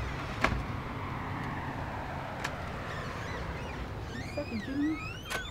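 Outdoor ambience: a low steady rumble with birds chirping near the end, and a few sharp clicks, the loudest about half a second in.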